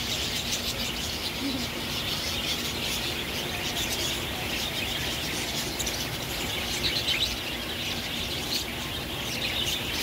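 Budgerigars chattering: a dense, continuous stream of short high chirps.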